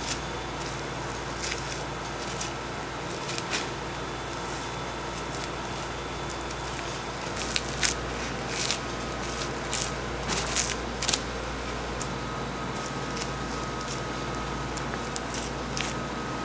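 Knife cutting and trimming raw beef: scattered soft wet cuts and taps, busiest about halfway through, over a steady electrical hum.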